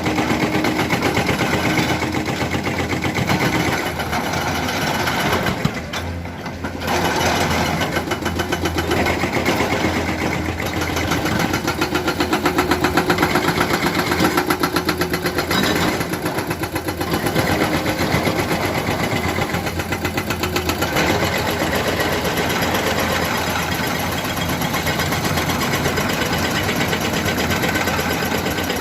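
Diesel engine of heavy construction machinery running steadily with a fast, even rhythm, dipping briefly and shifting in level a few times as the load changes.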